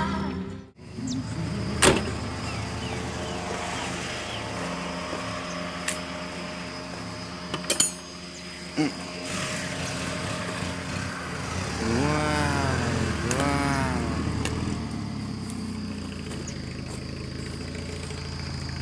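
Car driving slowly on a dirt road: a steady engine and road rumble, with a few sharp knocks and rattles from the bumpy track.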